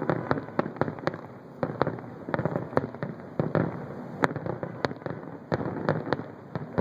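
Distant fireworks show: a rapid, irregular string of booms and bangs, several a second, over a continuous rumble.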